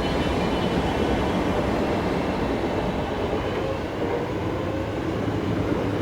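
Train running on the line: a steady rumble of wheels on rail, with a faint whine that rises in pitch in the second half.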